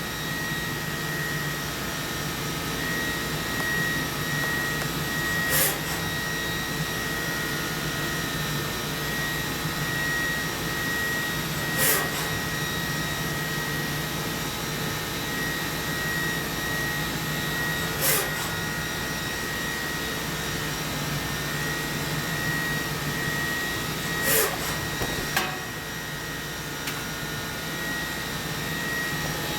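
A 2007 Mori Seiki NV4000DCG vertical machining center running on test, with a steady machine hum and a high steady whine. A short sharp sound cuts through it about every six seconds, five times in all.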